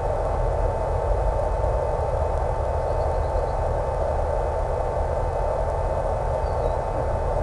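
Small electric RC plane in flight: an E-flite Power 10 brushless motor turning an 11x7 APC propeller at steady throttle, heard as a constant whine under a dense hiss of wind and static.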